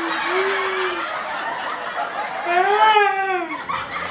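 A woman laughing and squealing in a high voice. About two and a half seconds in, one long drawn-out cry rises and then falls in pitch.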